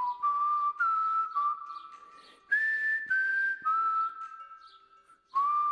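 Outro music carried by a whistled melody: two short phrases of held notes, each stepping down in pitch and fading out before the next begins.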